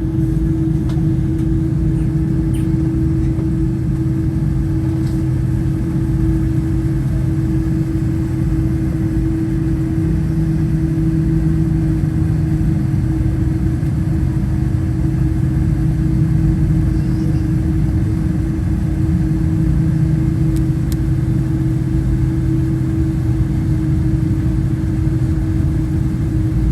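Steady droning hum inside a Boeing 787-9's cabin: one constant tone over a low rumble, unchanging throughout.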